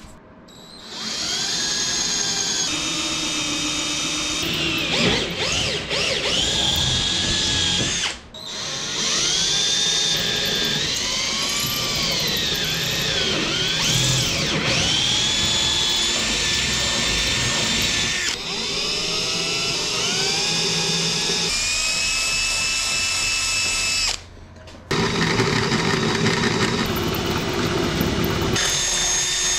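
Power drill boring 1/4-inch holes through steel strut attachment brackets and aluminium spar cap strips. The motor's pitch sags and recovers as the bit loads up, in several long runs with brief stops about 8 seconds in and around 24 seconds in.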